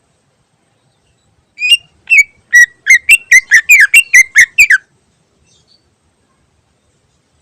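Cucak ijo (green leafbird) singing a fast run of about a dozen loud, clear whistled notes, each sliding down in pitch, lasting about three seconds and quickening toward the end.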